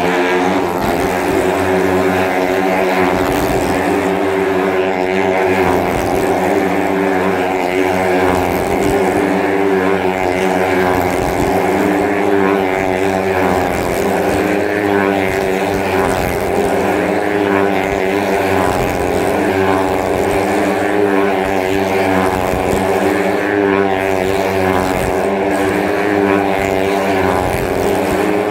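Small motorcycle engine held at steady high revs as the bike rides round the vertical wooden wall of a Well of Death. It drones without a break, its pitch wavering slightly, and the sound echoes inside the drum.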